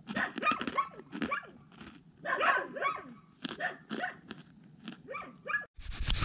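Farm dog barking over and over in a quick, unbroken run of barks, the nonstop barking that the camper takes for the dog guarding its ground. The barking cuts off abruptly near the end, replaced by a low rumble.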